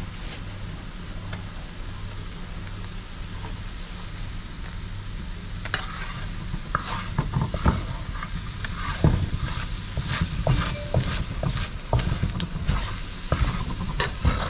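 Butter, onion and flour sizzling gently in a non-stick skillet as the flour cooks into a roux. From about six seconds in, a wooden spatula stirs and scrapes across the pan in quick, irregular strokes.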